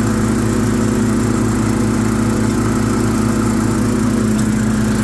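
Kohler 18-horsepower engine of a Hustler FasTrak zero-turn riding mower running at a steady speed.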